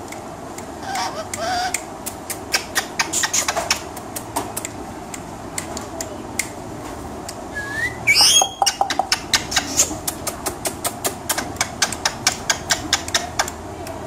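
Indian ringneck parrot in a cage: a run of sharp clicks, several a second, and about eight seconds in a short rising whistle followed by a loud squawk.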